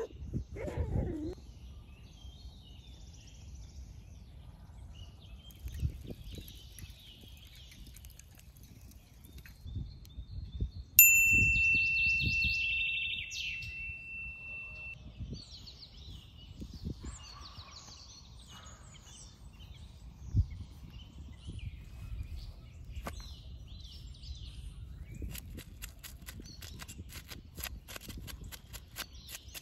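Songbirds chirping, with scattered low knocks of handling. About eleven seconds in, something is struck once and rings with a clear bell-like tone that fades over about four seconds. Near the end there is a fast run of light ticks.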